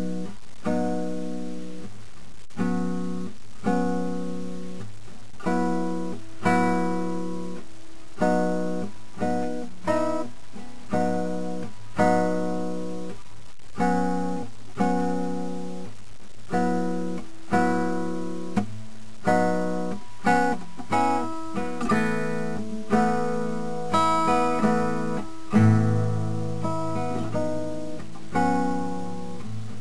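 Background music: acoustic guitar playing plucked notes and chords at an unhurried, steady pace.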